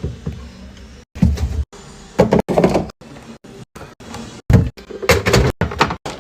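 Restocking a fridge: a string of short knocks and clunks as containers and fridge doors are handled, broken by several sudden silent cuts.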